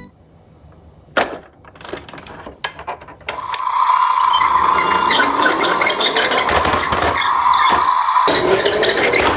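A few plastic knocks and clicks as a toy garbage truck is handled. About three seconds in, its battery-powered sound-and-light feature switches on from the roof button and runs as a loud, steady, grinding mechanical whirr with clicks. It breaks off briefly near the end, then starts again.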